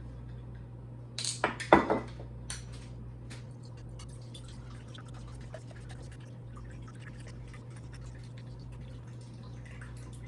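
Soy sauce being poured, a faint steady trickle, after a couple of sharp knocks just under two seconds in.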